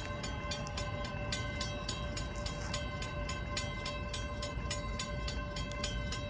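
Railroad grade-crossing warning bells ringing rapidly and steadily, at about four strokes a second. They signal that a train is approaching and the crossing gates are lowering.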